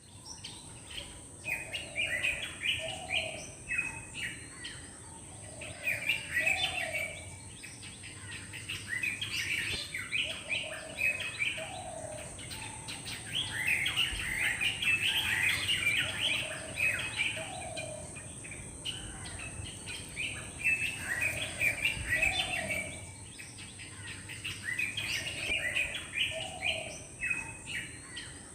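Drongo calling: clusters of quick, chirpy whistled notes repeated every few seconds, each with a short lower note beneath it.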